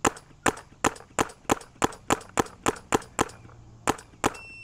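A paintball marker firing a steady string of about a dozen sharp shots, roughly three a second. Near the end a short, steady, high electronic beep sounds from the chronograph that measures the shot velocities.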